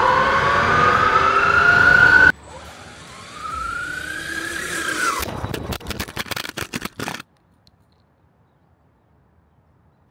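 Brushless electric motor and drivetrain of a 3D-printed four-wheel-drive RC car whining up in pitch as it accelerates, picked up by a microphone mounted on the car. A second whine rises and falls. About five seconds in there is a rapid clatter of knocks as the car strikes the camera and knocks it over, and the sound drops to near silence about seven seconds in.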